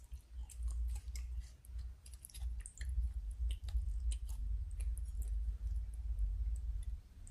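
Irregular light clicks and scrapes of a metal spoon against a ceramic plate as it cuts through fried batagor in sauce, over a low rumble that stops near the end.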